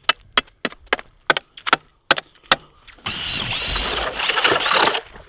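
A series of sharp clicks and knocks, then about two seconds of an electric ice auger boring into lake ice. Its motor whines in a few swelling surges as the bit cuts, then stops abruptly.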